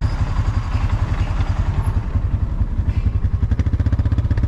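A motor vehicle's engine running steadily close by, with a rapid, even chugging pulse.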